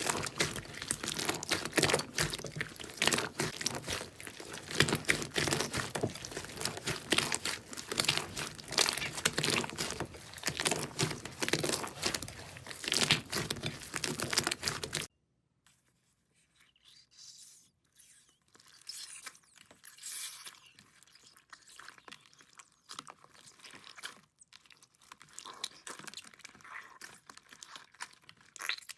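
Crunchy slime being squeezed and kneaded by hand, giving a dense run of crackles and crunches. About halfway through it cuts abruptly to a much quieter, sparser crackling.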